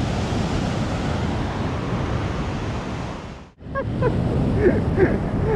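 Ocean surf breaking on a beach, with wind buffeting the microphone: a steady rushing noise that drops out abruptly for a moment about three and a half seconds in, then resumes.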